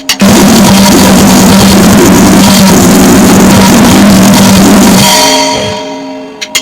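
Noisegrind band playing: a dense, very loud wall of distorted noise and blasting drums over a steady drone starts a moment in. Near the end it fades into ringing tones, then four quick sharp clicks count in the next blast.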